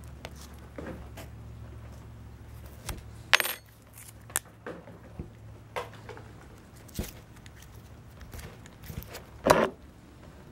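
Small handling noises at a workbench: the sheathed copper cable and small hand tools rustling and clicking, with a sharp click about three and a half seconds in and a louder one near the end.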